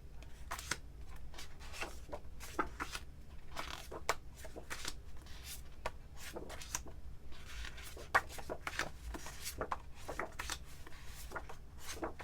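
Paper and plastic craft packaging rustling and crinkling as it is handled, in irregular light crackles and ticks over a steady low hum.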